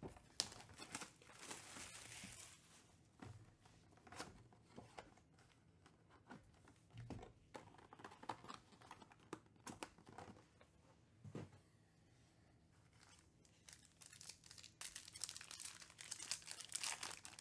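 Hands handling a cardboard trading-card box and tearing open its foil card pack, the wrapper crinkling. There is a rustle near the start, then scattered clicks and light handling, with the longest stretch of crinkling tearing near the end.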